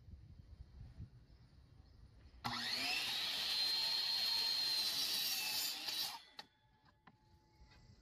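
Sliding compound miter saw starting about two and a half seconds in and running at full speed with a high whine while its blade cuts through a wooden board. It cuts off suddenly a little after six seconds, followed by a few light clicks.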